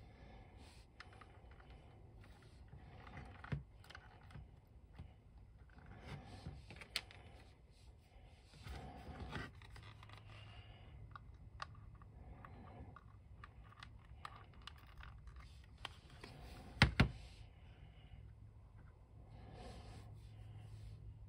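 Hard plastic parts of a toy boat model being handled and fitted together: scattered light clicks, taps and scrapes, with a sharp double click about 17 seconds in.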